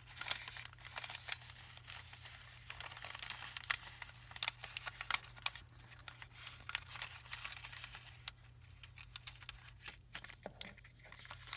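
Paper being handled and folded: repeated rustling and crinkling with small sharp clicks and taps, busier in the first half.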